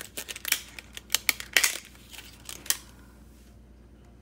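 Packaging being opened by hand: rustling and several sharp snaps and clicks, stopping about three seconds in.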